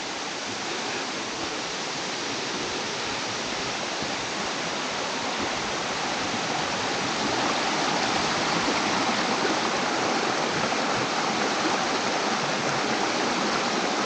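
Water of a waterfall falling and rushing, a steady, even hiss that grows a little louder over the first several seconds.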